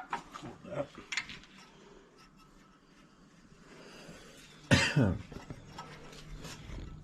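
Faint clinks and small knocks of hand tools on engine parts, with one loud, short vocal sound falling in pitch about five seconds in.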